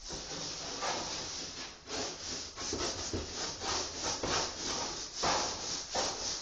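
Rhythmic rubbing strokes against a surface by hand, about two a second, each a short scratchy swish.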